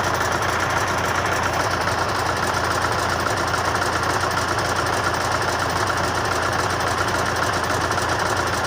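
Engine idling steadily with a fast, even knocking beat, the knock the owner is trying to track down.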